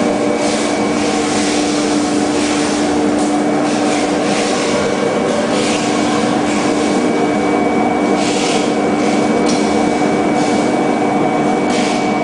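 CNC contour foam cutting machine running: a steady motor hum with a thin high whine, over a rasping hiss that swells and fades as its blade cuts through foam.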